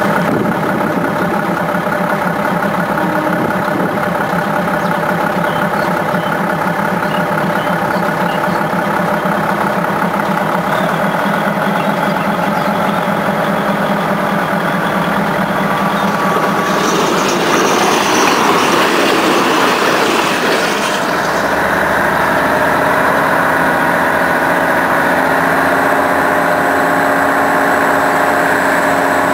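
Daewoo diesel railcar running at speed, its engine drone heard through an open window. About 17 s in a louder rushing noise swells for a few seconds, and after it the engine's tone changes.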